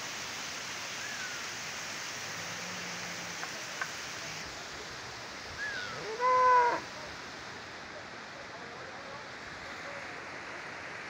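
One of the herd's cattle moos once, a short loud call about six seconds in, over a steady rushing hiss.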